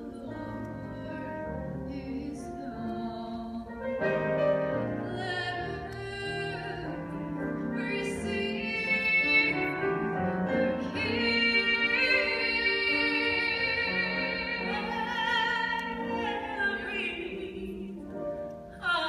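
Opera-style classical singing with a strong vibrato over instrumental accompaniment.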